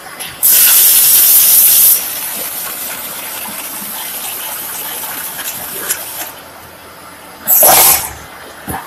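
Compressed air hissing from a wood-flooring carton packing machine's pneumatic actuators. A loud blast lasts about a second and a half, a softer hiss runs on for a few seconds, and another short loud blast comes near the end.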